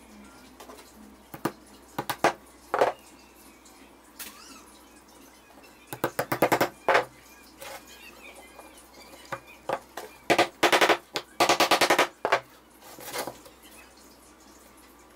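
Plywood boards and small brass hinges knocking against each other and the wooden tabletop as they are handled: a few single knocks, then two runs of quick taps.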